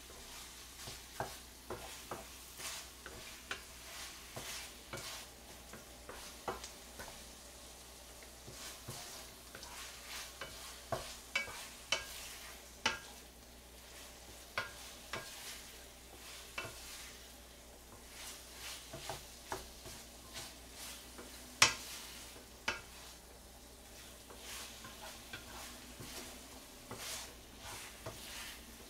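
Spatula stirring and scraping rice cakes in a frying pan of sizzling oil, with irregular clicks and scrapes against the pan. One sharper knock comes a little past two-thirds of the way through.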